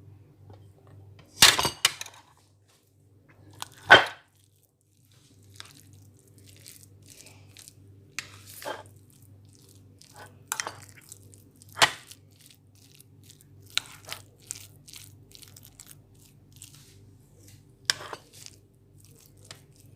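Cutlery mashing and stirring mashed potato with cheese and cream in a bowl: soft scraping with irregular sharp clinks against the bowl, the loudest about one and a half and four seconds in.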